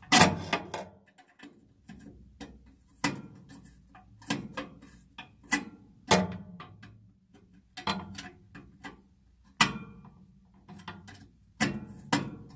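Screwdriver unscrewing the small screw that holds a furnace's flame sensor: irregular metallic clicks and scrapes, a second or two apart.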